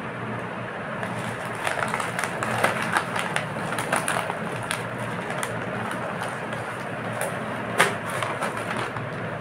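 A plastic snack packet crinkling and crackling as it is handled, in clusters of sharp crackles, over a steady background noise. Near the end comes one louder crack as the packet's sealed top is pulled apart.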